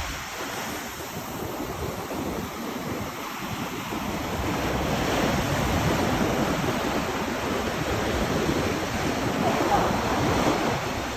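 Sea waves washing onto the shore: a steady rushing hiss that swells louder through the middle and eases off near the end.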